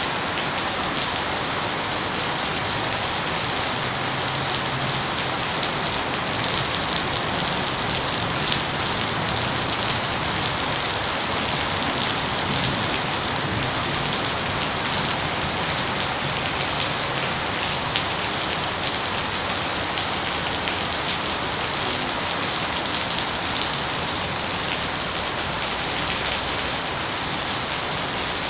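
Heavy rain falling steadily: a dense, even hiss with scattered single drop hits.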